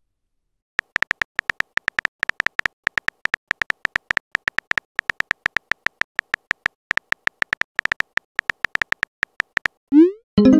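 Texting-app keyboard sound effect: a rapid run of short, high clicks as a message is typed, starting about a second in. Near the end a quick rising swoosh plays as the message is sent.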